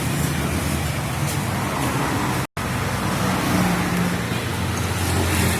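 Yamaha RX-King's two-stroke single-cylinder engine idling steadily through a modified exhaust, with a momentary break in the sound about halfway through.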